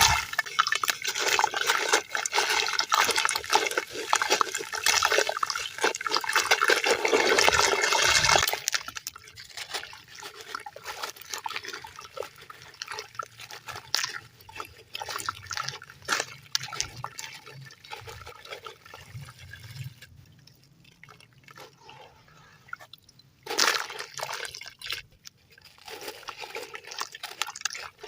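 Sand-cement chunks crumbling in water. For about the first eight seconds there is a dense, loud splashing and crackling, then scattered crackles and drips. A short louder burst comes near the end.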